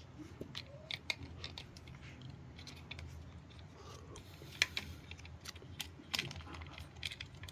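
Plastic toy vehicles being handled: irregular small clicks and crackles, with two louder clicks, one about four and a half seconds in and one about six seconds in.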